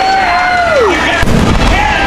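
Fireworks shells bursting with deep booms, a heavy one just after the first second. Over them a spectator's drawn-out "ooh" holds and then falls in pitch, with a shorter one near the end.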